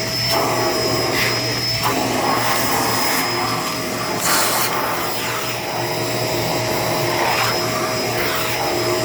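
Shark LA702 Lift-Away upright vacuum cleaner running steadily with a constant motor whine, with the hose and crevice tool being moved over a surface; a brief scraping rush of suction about four seconds in.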